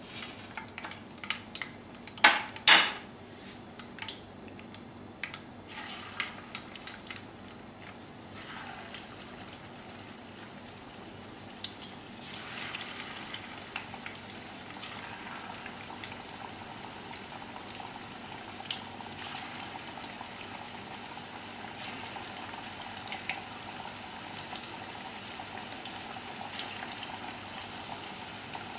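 Marinated chicken pieces deep-frying in hot oil in a stainless steel kadai: a steady sizzle and bubbling that grows fuller about twelve seconds in as fresh pieces are dropped into the oil. A few sharp knocks near the start.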